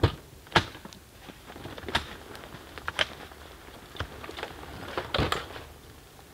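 Irregular knocks, clunks and rustles of camping gear being handled and packed away, with a sharp knock about every second and a small cluster of them near the end.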